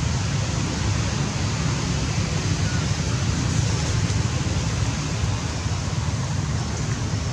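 Steady outdoor background noise: an even rushing hiss over a heavy low rumble, with no distinct animal calls or knocks.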